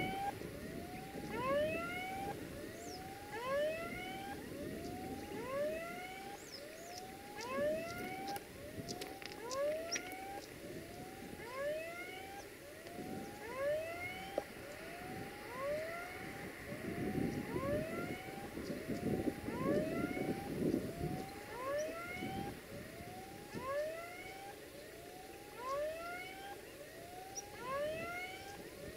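A short rising chirp-like tone repeats steadily, about three times every two seconds, over the low, distant rumble of an approaching diesel locomotive. The rumble swells for a few seconds past the middle.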